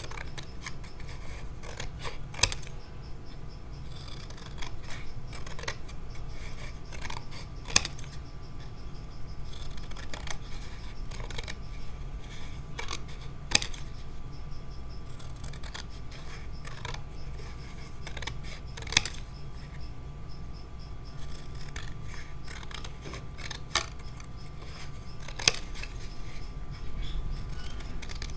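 Scissors cutting through watercolor paper in slow, smooth strokes, with a sharp click every few seconds, six in all, the loudest sounds.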